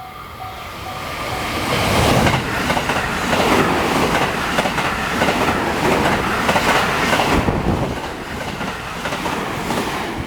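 An electric train passing close by, its noise swelling over about two seconds, holding loud with a clatter of wheels over rail joints, then easing off near the end. At the start a level-crossing warning bell dings evenly, about two and a half times a second, until the train drowns it out.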